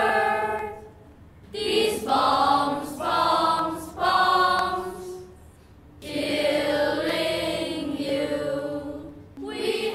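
A choir singing a slow song in several long held phrases, with short breaks between them.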